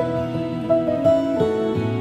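Soft instrumental background music: sustained notes over a steady low tone, with a slow melody moving above it.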